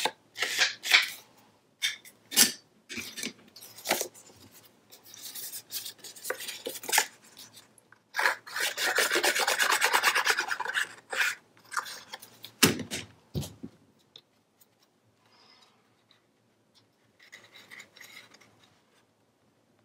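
Edges of a paper piece being inked with short, sharp rubbing strokes, then a longer rub of about three seconds. A single knock about two-thirds through, then faint paper handling.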